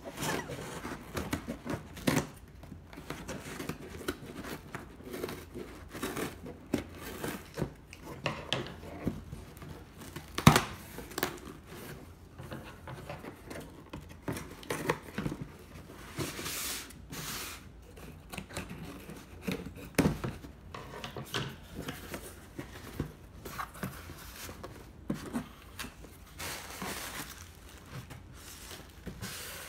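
Cardboard shipping box being opened by hand: packing tape tearing, cardboard flaps scraping, and plastic packaging crinkling as items are pulled out. Sharp knocks throughout, the loudest about ten seconds in and another about twenty seconds in.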